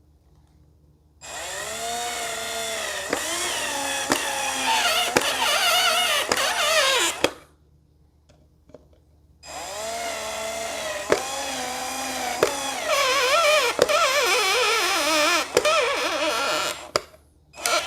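Electric drill running in two long runs of several seconds each. Its pitch rises as it spins up, then sags and wavers under load, with a few clicks along the way.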